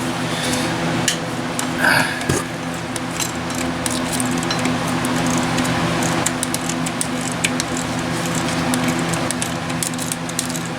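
Hand tools working a nut and stud on an engine bracket: scattered ratchet-and-socket clicks and metal taps, with one ringing metal clink about two seconds in. A steady hum runs underneath.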